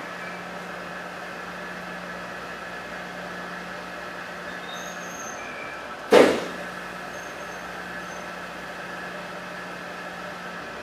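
Powder-coating booth ventilation and the electrostatic powder spray gun's air running steadily, with a low hum. About six seconds in comes one loud, short blast of air: the booth's dust-collector cartridge filters being pulse-cleaned by air pushed back through them.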